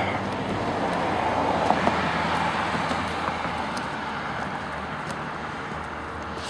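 Road traffic: a car going by, its tyre and engine noise swelling over the first two seconds and fading away toward the end.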